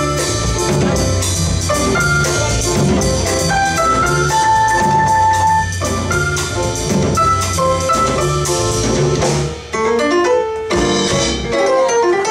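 Live jazz band playing: upright bass, drum kit and piano. About nine and a half seconds in, the bass and drums drop out and the piano plays on alone for a moment.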